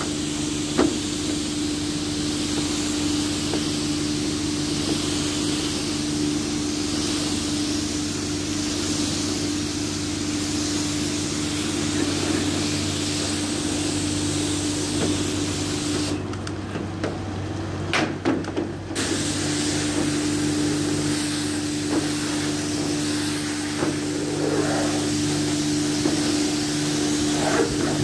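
Pressure washer spraying water at high pressure, a steady hiss with a constant hum under it. Just past the middle the spray and hum stop for about three seconds, with a couple of clicks, then start again.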